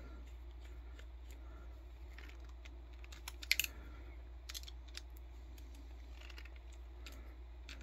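Faint scattered clicks and taps of a hex driver and small hand tools on an RC car's plastic and metal parts as set screws are tightened. A small cluster of clicks comes about three and a half seconds in, over a low steady hum.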